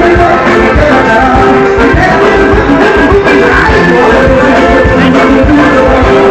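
Loud band music with a steady beat and sustained melodic notes.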